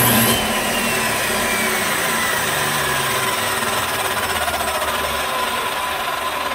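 A 12-amp Skilsaw circular saw runs loudly, powered from a 1500-watt inverter without tripping into overload. Its motor whine falls slowly and steadily in pitch.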